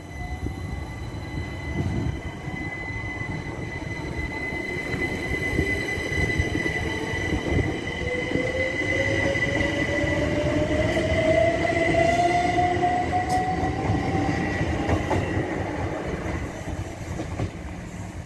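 Class 387 Electrostar electric multiple unit accelerating past, its traction motors giving a whine that rises steadily in pitch over the rumble of wheels on rail. It is loudest as the train draws level, then fades as it runs away.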